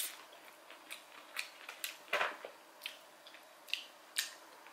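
Close-miked chewing of sushi: irregular wet mouth clicks and smacks, the loudest about two seconds in.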